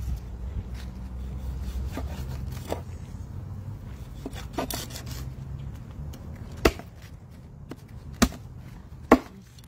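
Meat cleaver chopping a mutton snapper into pieces on a wooden cutting board: sharp chops at uneven gaps a second or two apart, the last three the loudest.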